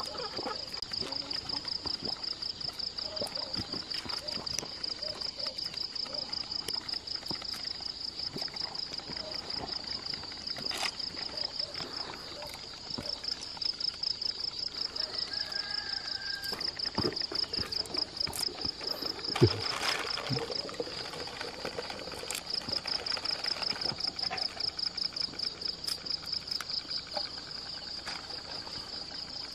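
Insects chirping in a steady, fast, evenly pulsing high trill, with occasional rustles of a plastic bag and splashes of hands working in a basin of water.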